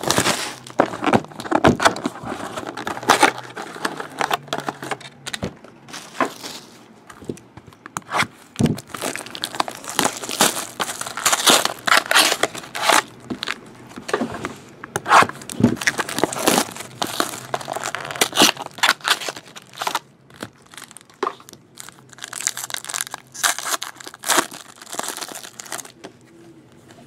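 Foil-wrapped hockey card packs and their box being opened by hand: irregular crinkling and tearing of the wrappers, with cards handled between. The crinkling thins out near the end.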